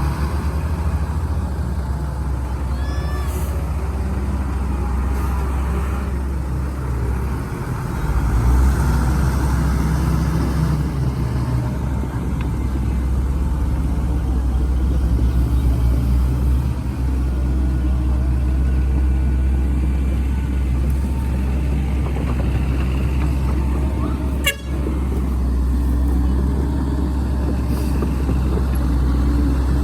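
Volvo excavator's diesel engine running with a steady low rumble, briefly dipping twice.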